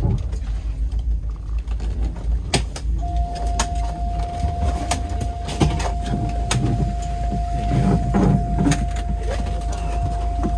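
Tour vehicle idling with a steady low rumble, with scattered clicks and knocks of a door and passengers getting out. A single steady electronic tone starts about three seconds in and holds.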